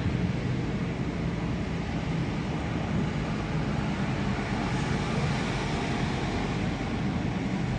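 Steady road and engine noise heard from inside a moving car's cabin, a constant rumble with a low hum.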